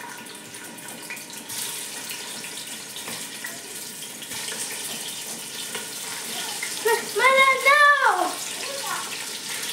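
Pieces of raw rabbit frying in hot oil in a stainless steel pot: a steady sizzle with small spattering crackles. About seven seconds in, a voice calls out briefly and loudly.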